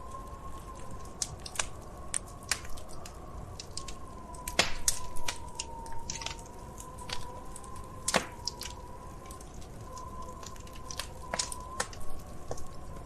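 Wood fire crackling, with irregular sharp pops, the loudest cluster about four and a half seconds in and another just after eight seconds. Under the crackles runs a faint, gently wavering whistle.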